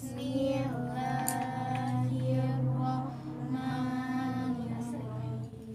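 A group of children's voices chanting together in unison in long, held sung notes. This is the chant led before the closing prayer, which opens with Arabic counting: 'wahid, itsnan, tsalatsah'.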